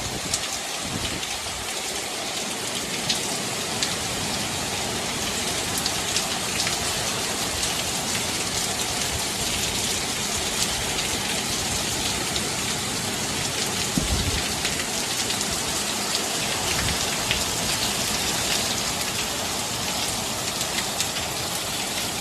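Heavy rain falling steadily in a storm: a dense, even hiss with the patter of individual drops. There is a short low thump about fourteen seconds in.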